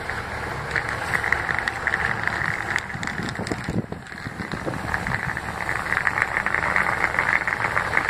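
Underfloor diesel engine of a Class 150 Sprinter diesel multiple unit idling at a station platform: a steady mechanical hum with a pulsing mid-pitched whine, dipping briefly about halfway through.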